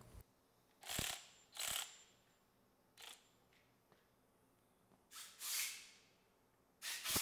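Short clicks and handling noise as a Ryobi HP cordless ratchet is fitted onto the bolt of a torque tester. There are five brief bursts, the longest lasting over half a second in the second half, with no steady motor whir.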